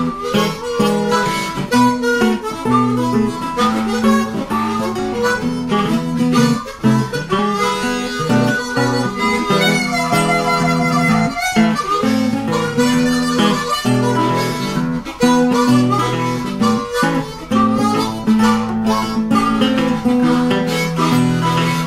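Background music: a harmonica playing a melody over strummed and picked acoustic guitar.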